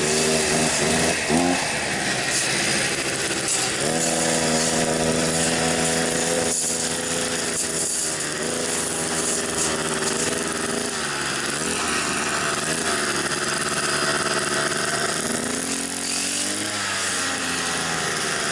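Brush cutter engine fitted with a moped's stock muffler, running under load while cutting grass, its speed rising and falling several times. The exhaust is quite quiet.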